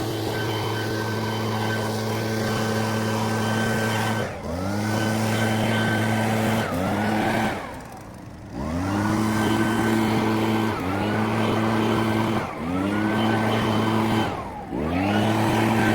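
Small gasoline engine of lawn equipment running at full speed. Its pitch drops sharply and climbs back up about every two seconds, twice falling away almost to nothing before winding back up.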